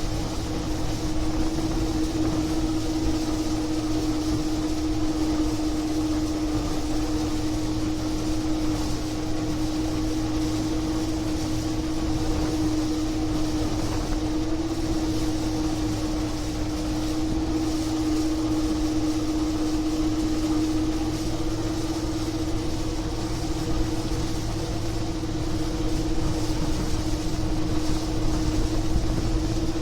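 Gleaner E combine running steadily while harvesting corn, with a constant pitched hum that does not change over the whole stretch.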